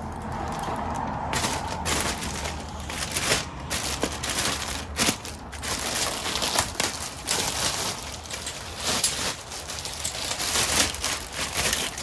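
Packaging rustling and crinkling, with scattered irregular clicks and knocks, as a new valve spring compressor tool is unpacked and handled.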